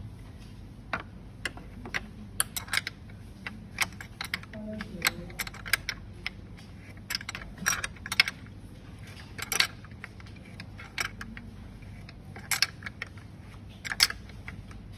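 Irregular sharp metallic clicks and clinks, a dozen or more, over a steady low hum: the abnormal bearing noise and loose-screw rattle of a Pooboo X630M3.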